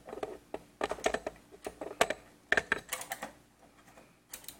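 Phillips screwdriver turning a screw out of the rear panel of a steel PC case: a run of small, irregular metallic clicks and rattles, with a couple more near the end.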